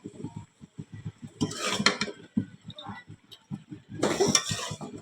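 Metal utensils and cookware clinking, with small knocks throughout and two longer scraping clatters, one about a second and a half in and one about four seconds in.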